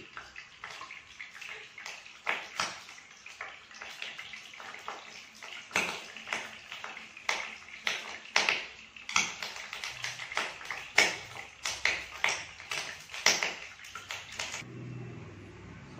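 Running water splashing, with irregular clinks and knocks of a bowl and dishes being rinsed at a kitchen sink, stopping shortly before the end.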